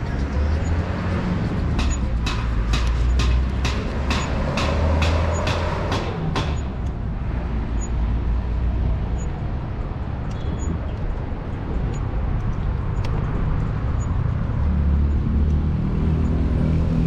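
Steady low rumble of city road traffic. Over a few seconds near the start comes a run of about a dozen sharp ticks, roughly three a second.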